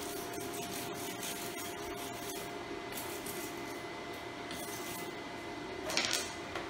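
Arc welding set running with a steady hum and hiss, with scattered crackles in the first couple of seconds and a short, louder rasp near the end.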